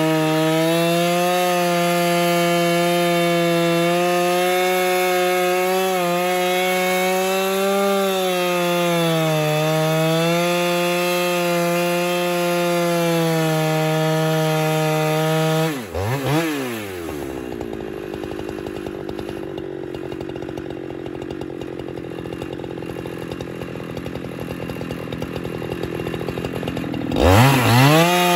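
Husqvarna 395XP two-stroke chainsaw running at full throttle under load, ripping a fir log lengthwise on a Granberg Alaskan chainsaw mill. About halfway through, the throttle is let off and the engine drops to a quieter, lower idle, then revs sharply back up near the end.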